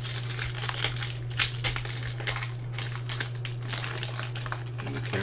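Foil trading-card pack wrapper crinkling and crackling in irregular bursts as hands tear it open and peel it back.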